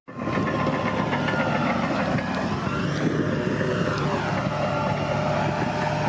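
Bulldozer's diesel engine running steadily at working speed, with a brief sag and recovery in pitch around the middle.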